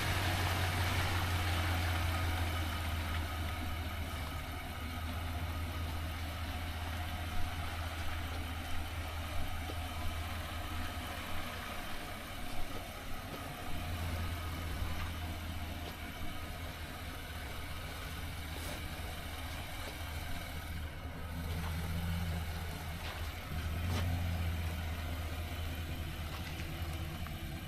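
Motor vehicle engine running at low speed, a steady low drone that swells and eases a few times, with a few light knocks.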